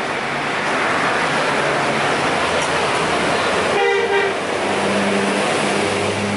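Heavy road traffic passing close by, a steady loud rush of tyres and engines. About four seconds in a vehicle gives a short horn toot, and then an engine drones low as a vehicle passes.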